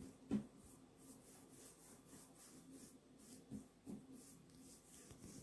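Hands rolling a strip of soft cookie dough back and forth on a wooden table: faint rubbing, with a soft knock about half a second in and two lighter ones near four seconds.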